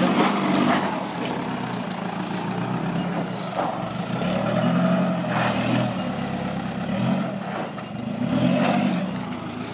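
Toyota Hilux Vigo's 3.0-litre four-cylinder turbo-diesel engine working in low range up a rutted dirt climb, the revs swelling and easing several times as the truck crawls over the ruts.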